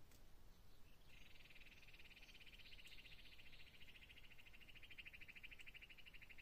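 A faint, steady, rapidly pulsing high trill of a calling animal, starting about a second in and going on without a break.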